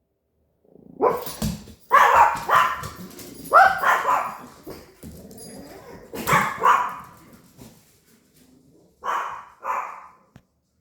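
Dog barking: loud short barks, mostly in pairs, with pauses between the groups.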